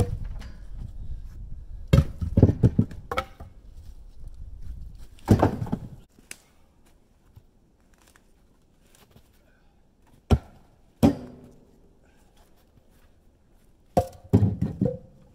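Cut firewood rounds being loaded by hand, making a series of heavy wooden thuds and knocks. There are clusters of knocks about two and five seconds in, two single sharp knocks with a brief ring around ten and eleven seconds, and another cluster near the end.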